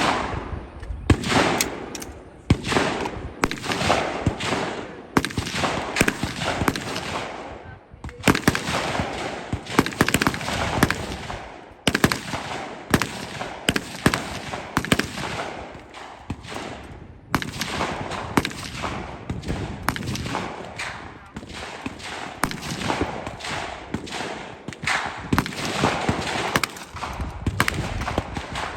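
Rifle and pistol gunfire: many sharp shots in quick, uneven succession, often overlapping, each echoing briefly.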